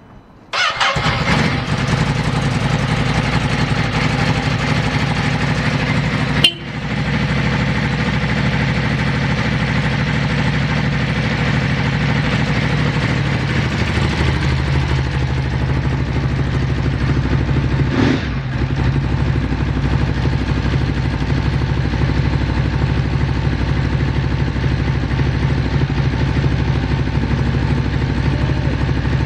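Ducati Monster 821's L-twin engine started on the electric starter, catching at once about half a second in, then idling steadily. A brief sharp knock comes about six seconds in.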